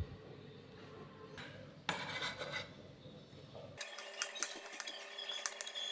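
Soft rubbing and rustling, then from about four seconds in a knife chopping chives on a wooden cutting board in a run of irregular sharp taps.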